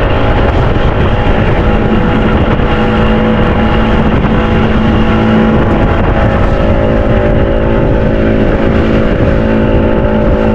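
Outboard motor of a small fishing boat running steadily at speed: an even engine drone over a rough, rumbling rush.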